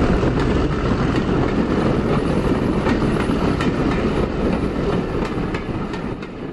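A railway train running on the rails: a steady rumble with irregular clicks of wheels over rail joints, fading away near the end.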